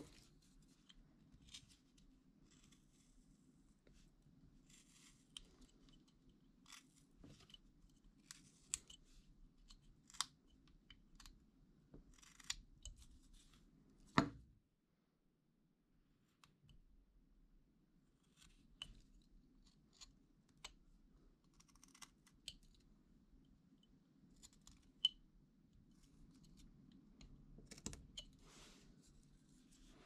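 Faint, irregular snicks and scrapes of a carving knife cutting into wood, with one sharper click about halfway through.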